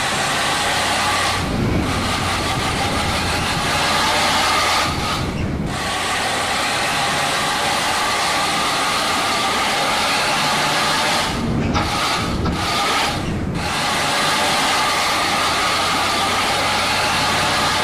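Road vehicle noise: a steady, loud rushing of traffic, with a few brief moments where the hiss drops away and a lower rumble comes forward.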